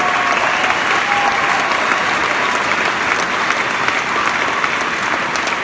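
Crowd applauding, with a few cheers near the start.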